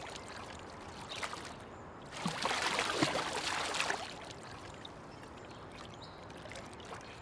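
Swimming-pool water splashing and lapping, with a louder stretch of splashing about two seconds in that lasts nearly two seconds.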